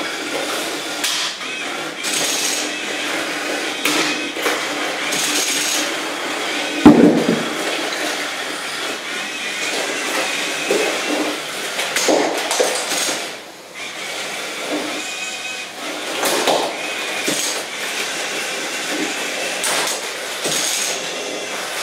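Lego combat robots fighting: the whine of their small electric motors and spinning weapon, under repeated plastic clattering and knocks as Lego parts collide and break off. The loudest crash comes about seven seconds in.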